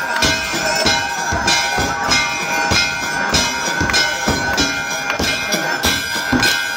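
Hindu temple aarti bells and percussion struck in a fast, even rhythm of roughly two and a half beats a second, over a steady metallic ringing.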